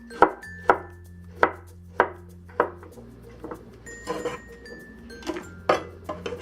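Kitchen knife chopping Mexican squash into cubes on a cutting board: five sharp strikes in the first three seconds, then lighter clatter and two more strikes near the end.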